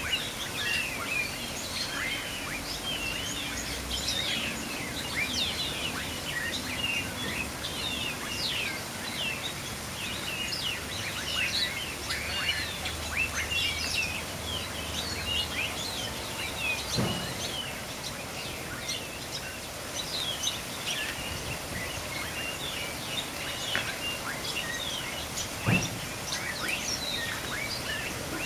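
Busy chorus of small birds chirping: many quick, high calls overlapping without a break. Two short, louder, lower sounds cut in, about halfway through and near the end.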